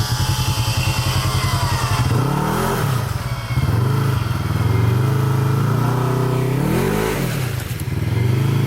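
Polaris RZR XP 1000 buggy's parallel-twin engine running, then revved hard several times, its pitch rising and falling with each blip, as it is driven into the swamp.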